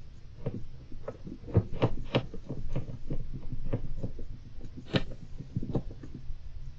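Golden hamster moving about its cage, making a run of irregular light clicks and taps, busiest about two seconds in, with a sharper click near five seconds.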